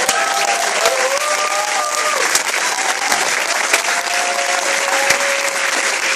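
Audience applauding, a dense steady clapping with voices whooping and cheering over it in rising and falling calls.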